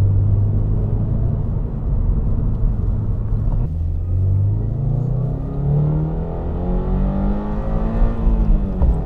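Toyota GR86's naturally aspirated 2.4-litre flat-four engine under acceleration. A steady engine note breaks off about three and a half seconds in, then the revs climb steadily for about four seconds and drop away just before the end.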